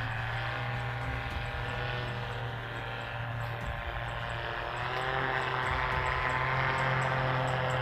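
A steady drone with several pitches at once that slowly waver, growing louder about five seconds in.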